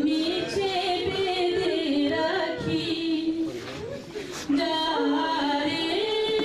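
A solo voice singing a Bengali song in long held, wavering notes; the singing breaks off briefly about four seconds in and then resumes.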